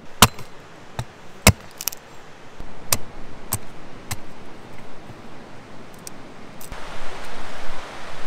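A series of sharp knocks and clicks, roughly one every half second to second, then a steady hiss that starts near the end.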